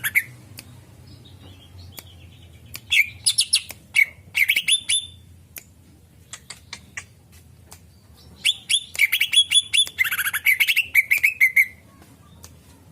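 Greater green leafbird (cucak ijo) calling in two bursts of rapid, high chirps, the first about three seconds in and the second from about eight and a half seconds to nearly twelve, with scattered sharp ticks between.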